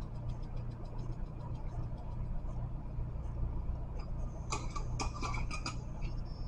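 Small clicks and rattles, about half a dozen in quick succession a little over four seconds in, as a shaker-topped spice jar is handled, over a low steady hum.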